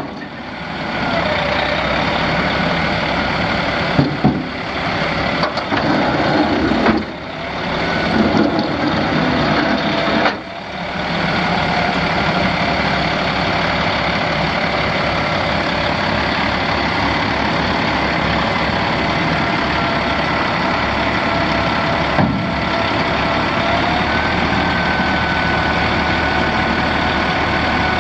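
Caterpillar C13 six-cylinder diesel engine of a Kenworth T800 dump truck running at a steady idle. There are a few knocks and unsteady moments in the first ten seconds, and a faint whine steps up slightly in pitch near the end.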